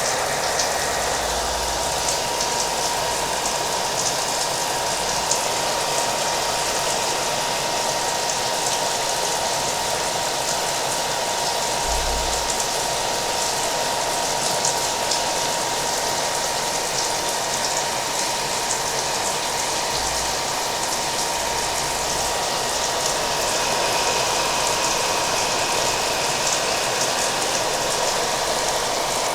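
A hair dryer running steadily with a thin constant whine, mixed with the even patter of falling rain.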